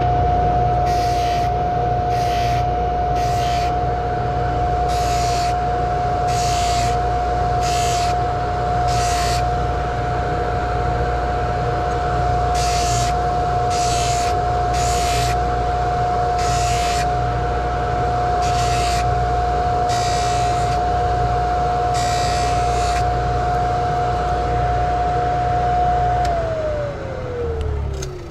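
Bench polishing motor running with a steady whine and low hum, with short repeated hisses as the gold coin bezel is pressed against the spinning buffing wheel. Near the end the motor is switched off and its whine falls in pitch as it spins down.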